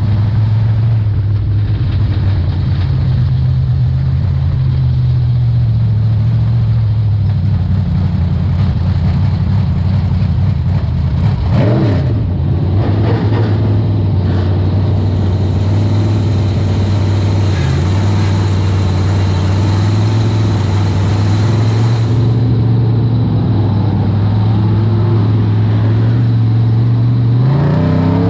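Race car engine running hard at steady high revs, dipping and climbing again briefly about twelve seconds in and revving up near the end.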